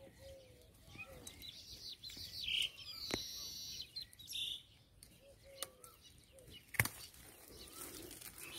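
Songbirds chirping and calling: short high chirps and some lower gliding notes. Two sharp clicks, about three seconds in and again near seven seconds, stand out as the loudest sounds.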